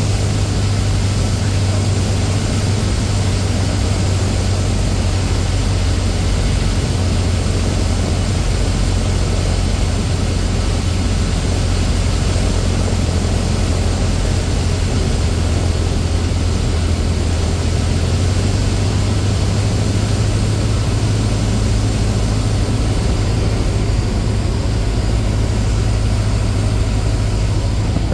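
Cessna A152 Aerobat's four-cylinder Lycoming O-235 engine and propeller running steadily on approach, a constant low drone with rushing noise over it.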